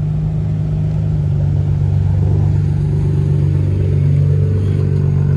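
Lowered widebody Nissan Fairlady Z (Z33) with its V6 exhaust rumbling steadily as the car creeps past at low speed, growing slightly louder as it comes closer.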